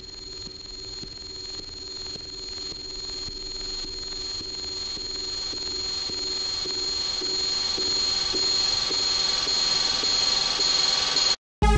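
A steady high ringing tone over lower held tones and a faint regular ticking, like a clock, swelling steadily louder and then cutting off suddenly just before the end.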